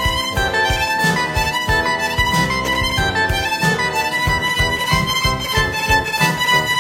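Instrumental music with a steady beat under held melodic notes.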